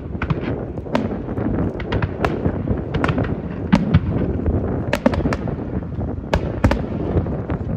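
Fireworks display: an irregular run of sharp bangs and crackling pops, several a second at times, over a dense low rumble.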